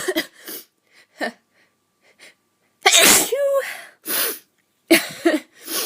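A woman's high-pitched sneezes, several in a row with short breaths between, the loudest about three seconds in.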